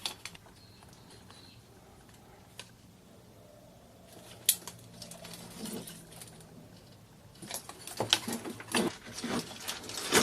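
Small electronic parts being handled and set down: a few isolated clicks in the first half, then a busy run of clicking and clattering from about seven and a half seconds in.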